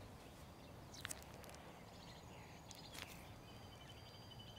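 Near silence: faint outdoor ambience with a few soft ticks, and a faint high trill starting near the end.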